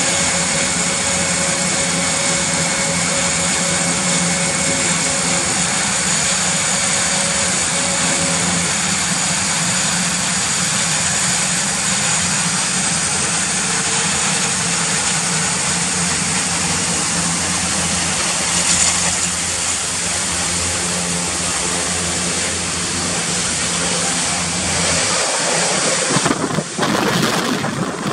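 Airbus A400M's Europrop TP400 turboprop engines running on the ground with their propellers turning: a loud, steady mix of propeller hum and turbine whine. About 26 seconds in, the propeller wash hits the microphone as gusty wind buffeting.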